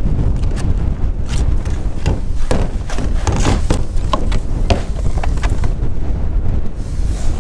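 Wind buffeting the microphone, with repeated knocks and clatters as rain-gutter sections and pipes are handled and set down on the IBC tank's cage and against the sheet-metal shed.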